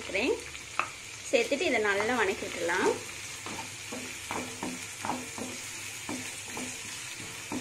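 Chopped onions and curry leaves sizzling in hot oil in a non-stick kadai. From about three seconds in, a wooden spatula stirs them in short scraping strokes against the pan. A voice is heard briefly in the first half.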